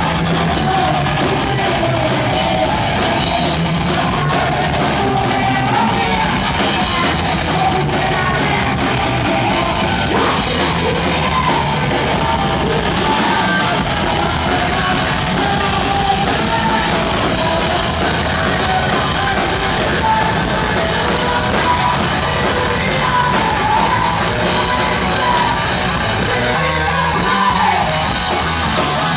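Heavy metal band playing live and loud: distorted guitars and drums with a singer's yelled vocals over them.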